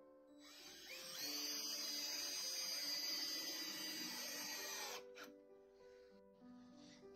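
Cordless drill running under load into a wooden block for about four seconds, its whine rising as it spins up about a second in, then stopping, over background music.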